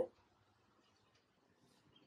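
Near silence: faint room tone in a pause between spoken sentences.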